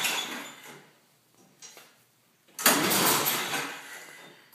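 Snowblower engine being pull-started on its recoil starter: one pull fades out in the first second, then a second sharp pull about two and a half seconds in turns the engine over, and it fades away without the engine catching.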